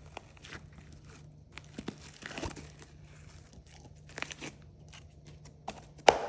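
Sticky slime being squished and stretched by hand, giving scattered small clicks and crackles, with a sharp louder click near the end.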